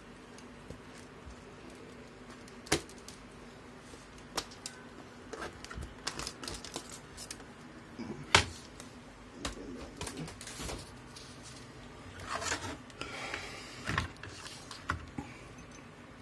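Irregular clicks and light knocks of tools and parts being handled on a repair bench, one sharper knock a little past the middle and some scraping near the end, over a faint steady hum.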